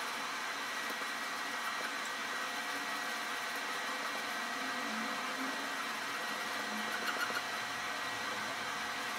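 Steady whirring noise with faint, steady high-pitched whines running through it, like a small motor or fan.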